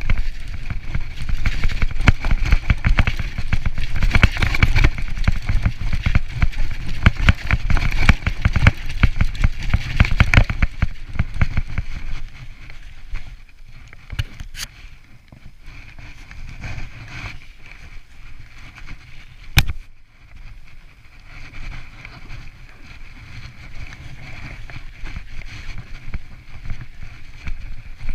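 Mountain bike rolling over bumpy snow-covered ground: the frame, fork and tyres rattle and knock hard for about the first ten seconds, then run smoother with a few single sharp knocks.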